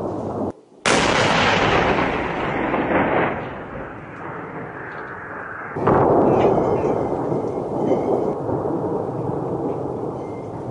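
Two heavy explosions about five seconds apart, each hitting suddenly and dying away in a long rumble. A short dropout just before the first marks an edit cut.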